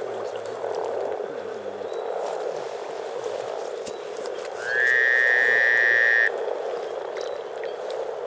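A dense, continuous chorus of frogs calling at a spring spawning pond. About five seconds in, a loud high tone rises briefly, holds for about a second and a half, then cuts off suddenly.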